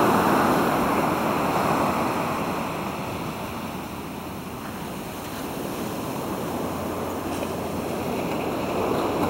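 Ocean surf washing onto a sandy beach: a steady rushing hiss that eases off over the first few seconds and swells again near the end.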